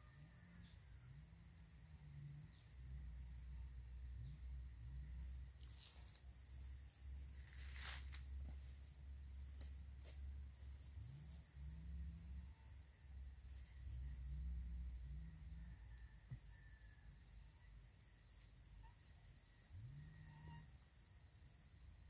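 An insect's steady, high-pitched continuous trill in forest undergrowth, with a low rumble underneath and a few short crackles of leaves or twigs being handled about six to ten seconds in.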